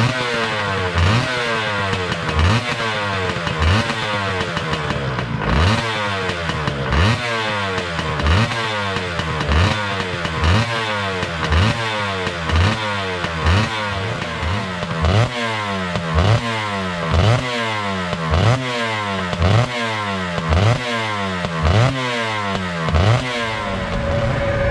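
Honda NSR250SP two-stroke V-twin being revved in quick, repeated throttle blips. Each rev shoots up sharply and then dies away, about one and a half times a second.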